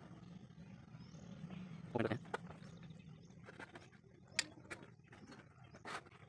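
Light handling of a keyboard's cardboard box: a few soft clicks and rubs in the second half. Faint bird calls sound in the background, one short call about two seconds in.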